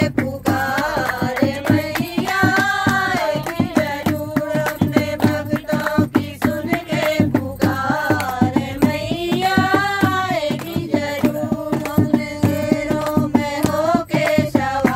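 Women singing a Hindu devotional bhajan to the Mother Goddess, accompanied by a dholak hand drum beaten in a steady rhythm.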